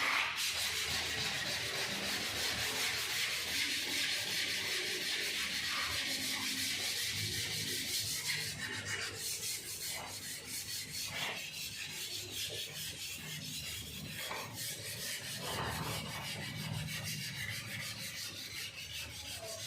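Sandpaper being rubbed back and forth over a car body panel by hand, a steady scratchy hiss that breaks into quicker, separate strokes about halfway through.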